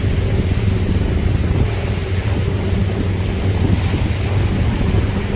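A motorboat's engine droning steadily as the boat runs across choppy water, with wind buffeting the microphone over the steady hum.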